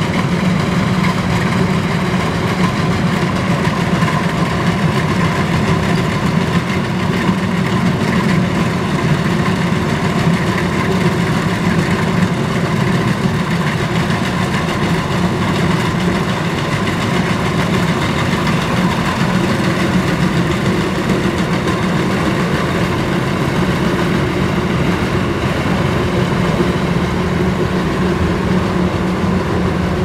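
Kubota DC105X combine harvester running close by, its diesel engine and machinery giving a loud, steady, even drone.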